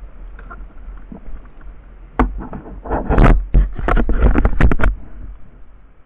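Knocks and scrapes on a plastic kayak as fishing gear is handled, a cluster of sharp clatters in the middle, over a low wind rumble on the microphone.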